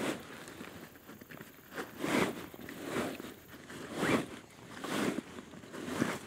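Canvas bed sleeve being dragged along wooden log poles, rasping in a run of pulls about a second apart.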